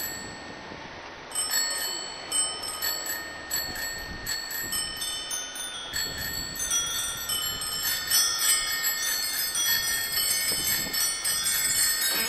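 Background music: a run of chiming, bell-like notes at many pitches, growing denser toward the end.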